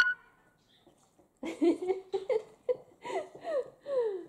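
A woman laughing softly in a run of short falling 'ha' sounds, after a brief sharp sound right at the start.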